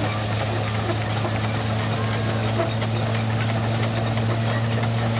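An engine running steadily at an unchanging speed, a constant low hum.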